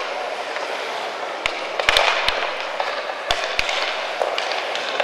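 Sharp clacks of hockey sticks and pucks on ice and boards, several close together around two seconds in and two more about three and a half seconds in, over a steady scraping hiss of skates on ice.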